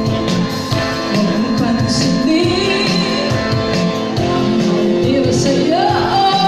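Loud backing music with a steady beat, with a woman singing over it through a handheld microphone.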